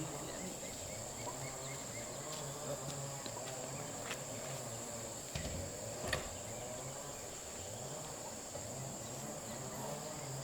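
Steady high-pitched insect chirring, with a low pulsing hum underneath and a couple of faint clicks about four and six seconds in.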